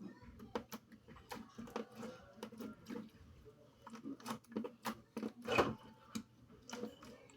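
Hands squeezing and poking slime, making irregular sticky clicks and pops several times a second, with one louder, longer squish about five and a half seconds in.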